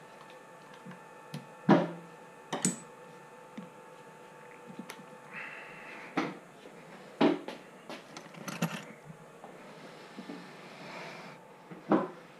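Hand tools and small plastic RC suspension parts being picked up and set down on a workbench: a handful of sharp knocks and clicks, the loudest about 2, 7 and 12 seconds in, with a short rustle a little past 5 seconds.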